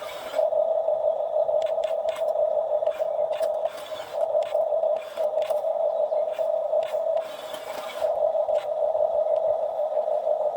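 Excavator at work: a steady mechanical drone that drops briefly a few times, with repeated short knocks and scrapes from the bucket working the ground.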